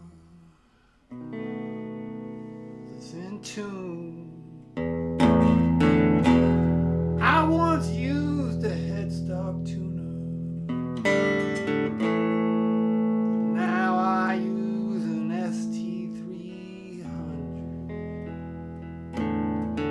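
Fender Telecaster electric guitar played through a Fender Princeton amp: sustained, ringing chords and single notes with string bends and vibrato. A much louder chord comes in about five seconds in, and another is struck near the end.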